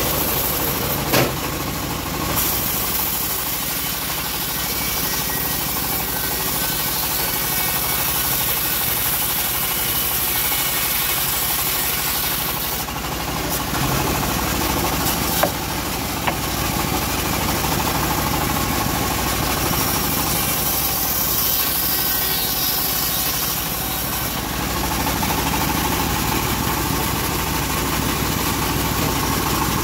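Homemade bandsaw mill running steadily, its blade ripping teak lengthwise, with a couple of sharp knocks, one about a second in and one about halfway.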